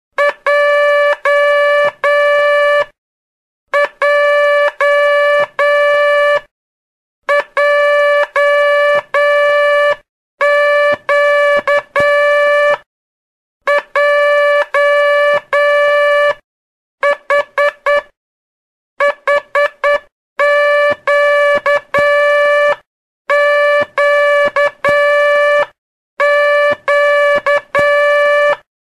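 Morse code practice tone, a buzzy mid-pitched note keyed in long and short marks, sending the letters Q, J and H in random order. Each letter takes two to three seconds and is followed by a pause of about a second, with dash-dash-dot-dash Q, dot-dash-dash-dash J and four-dot H groups.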